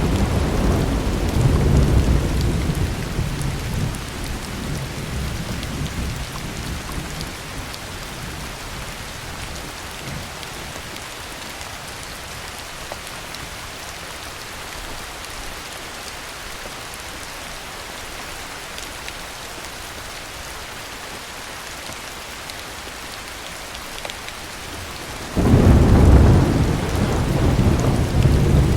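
Heavy rain falling steadily, with a thunder rumble dying away over the first few seconds and a loud new peal of thunder breaking in near the end.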